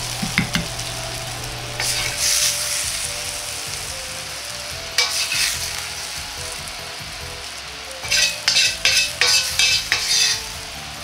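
A metal wok ladle scraping and stirring in short strokes: once about two seconds in, again about five seconds in, then a quick run of scrapes between about eight and ten and a half seconds. Under it runs a steady hiss with a low hum, as from the hot wok and kitchen.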